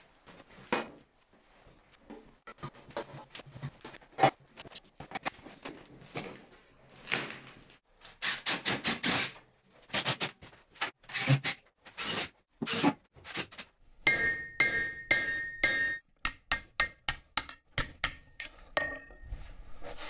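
Metalworking on a stove shell: a run of irregular hammer blows and metal clanks, with a steady high whine joining in for a few seconds in the last quarter.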